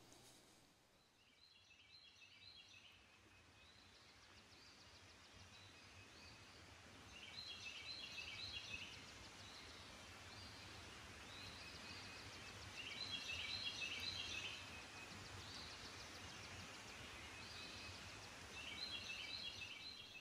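A bird singing the same short phrase of quick high notes four times, about every six seconds, over a faint steady high hiss.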